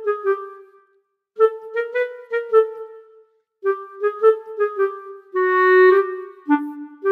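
Background music: a clarinet playing short phrases of quick, stepping notes separated by brief pauses, ending on a lower held note.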